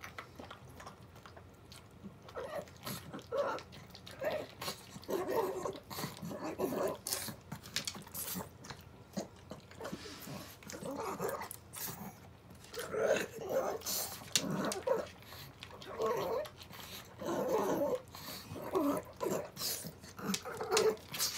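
An elderly pug eating from a ceramic bowl and licking it clean: irregular clusters of wet licks and short snuffling breaths with small clicks of tongue and teeth on the bowl.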